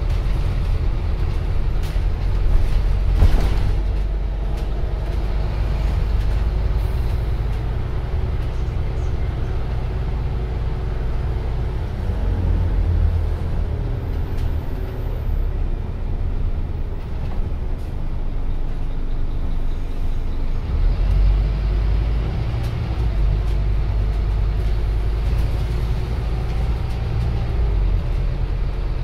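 Scania OmniCity bus heard from inside the saloon while driving: the diesel engine and drivetrain run with a steady low rumble, the engine note shifting in pitch about halfway through. A few sharp rattles or knocks sound in the first few seconds.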